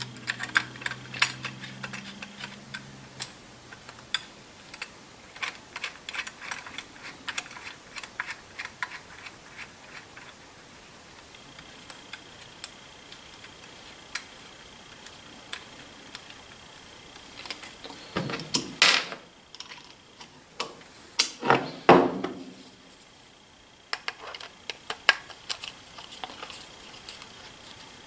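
Small metallic clicks and clinks of rifle parts and a screwdriver being handled while a Savage Model 64 .22 semi-automatic rifle is put back into its stock, with two louder scraping rubs about two-thirds of the way through.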